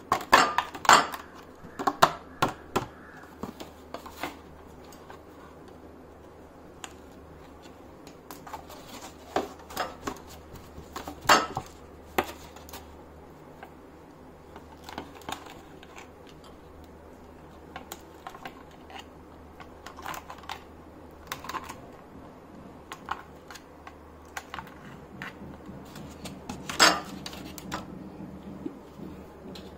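Scattered light clicks, taps and crackles of a thin clear plastic mold tray being handled and flexed while a knife loosens set jelly modaks and they are tipped into a glass dish. A few sharper knocks stand out, the loudest about eleven seconds in and again near the end.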